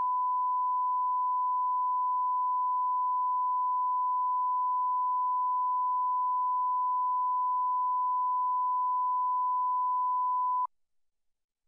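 Broadcast line-up reference tone: a steady 1 kHz sine tone that cuts off suddenly near the end.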